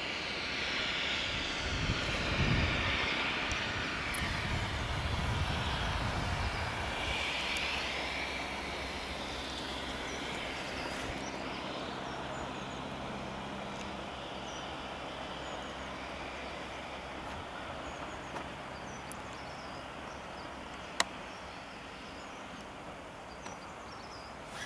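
Steam locomotive hauling a train away along the line, its exhaust and the run of the train loudest in the first few seconds and fading steadily into the distance. Birds chirp faintly as it fades, and there is one sharp click near the end.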